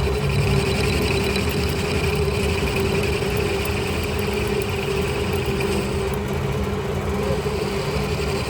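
Manual metal lathe running at a steady speed: a constant motor and gearbox hum with a steady tone and some machining noise over it.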